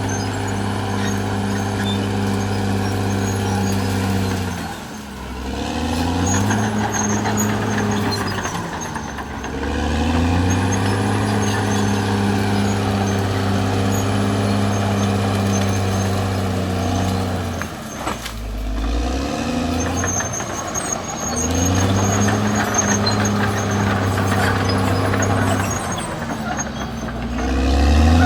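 Caterpillar D6R XL bulldozer's diesel engine running hard, its engine speed dropping and climbing back up about four times.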